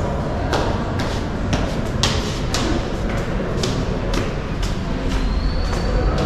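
Footsteps climbing marble stairs, about two steps a second, over a steady low background hum. A faint high steady tone comes in near the end.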